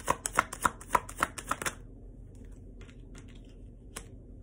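A tarot deck being shuffled by hand: a quick run of sharp card snaps, about three a second, that stops after about two seconds. Soft ticks follow, with one sharper click near the end as cards are handled and laid down.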